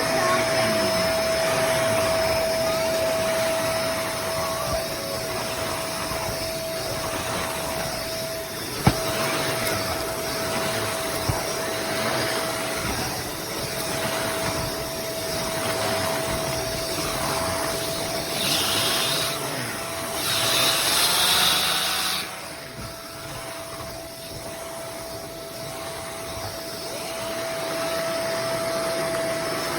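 Bissell MultiClean Allergen Pet bagless upright vacuum running steadily with a constant whine. There is a sharp click about nine seconds in, and a louder high hiss of air for a few seconds about two-thirds of the way through.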